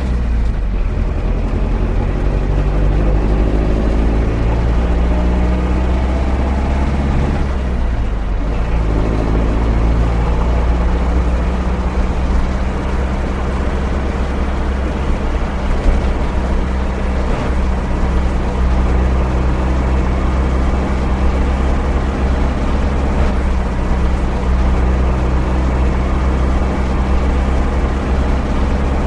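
A van's engine running steadily with a deep drone. About eight seconds in, the engine note dips and then climbs again.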